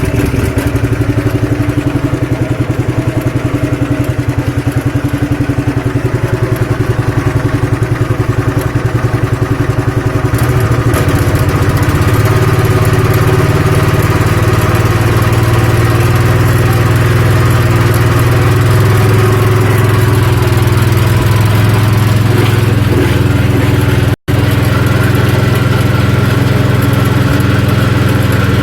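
Small petrol engine driving a peanut-grinding machine, running steadily just after being rope pull-started. It picks up a little about ten seconds in, and the sound cuts out for an instant a few seconds before the end.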